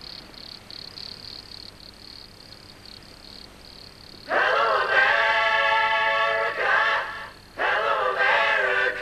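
A faint, pulsing high buzz like insects, then about four seconds in loud singing starts: a long held note, a short break, and another held phrase.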